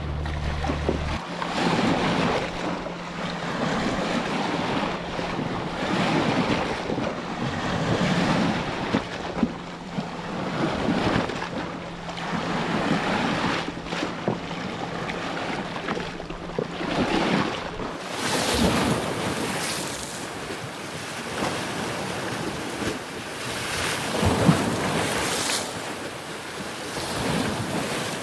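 Sea waves breaking and washing in, the surf swelling and falling every couple of seconds. A low hum underneath stops about a second in, and about eighteen seconds in the surf turns brighter and hissier.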